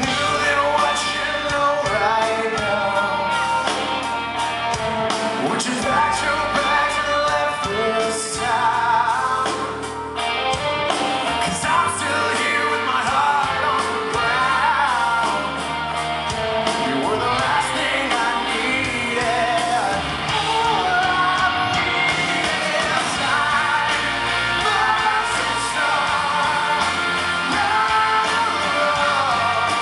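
Live rock band playing a song, with a male lead singer's voice over the full band.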